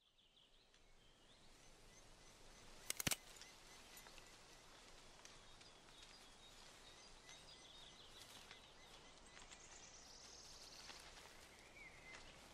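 Faint woodland ambience fading in from silence, with birds chirping and trilling throughout. About three seconds in, a quick cluster of sharp clicks stands out as the loudest sound.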